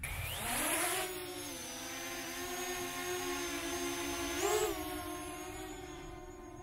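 Parrot Anafi quadcopter's motors and propellers spinning up for takeoff: a whine that rises in pitch during the first second, then holds as a steady buzz while the drone climbs. About four and a half seconds in the pitch and loudness jump briefly, and the sound grows fainter near the end.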